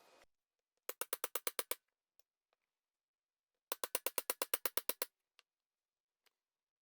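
Two quick runs of metallic taps, about ten a second, ringing: a hammer striking a Schedule 40 steel pipe used as a driver to seat a tapered roller bearing on the inner race, onto the Dana 18 transfer case output shaft.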